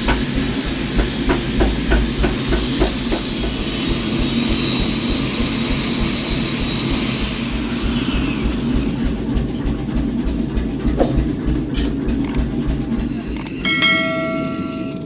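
A machine running steadily with a fast, even low pulse and scattered light clicks. A short held tone with several pitches starts near the end.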